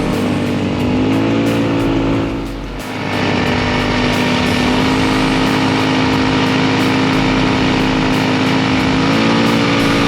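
Polaris RZR 200 side-by-side on rubber tracks running through snow, its engine and drivetrain pitch climbing, dropping briefly, then holding steady before climbing again near the end.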